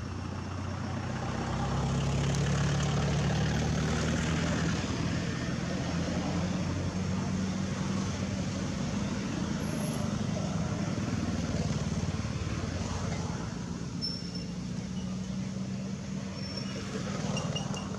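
An engine running steadily with a low hum, growing louder over the first two seconds and then holding.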